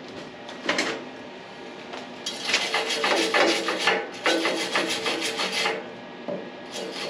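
Wire brush scrubbing a freshly laid weld on a steel go-kart frame to clean off slag and spatter. It comes as spells of rapid rasping strokes with a short break between them.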